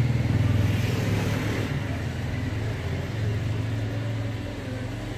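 Engine running steadily, a low pulsing rumble that is loudest in the first two seconds and eases off slightly after.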